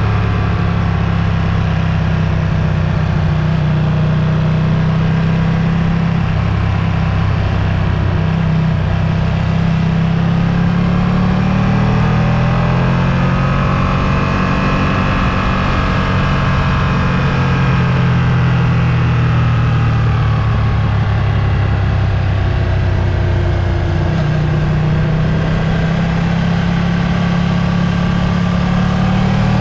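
Ducati Streetfighter V2's L-twin engine running under way, its pitch slowly rising and falling with the throttle.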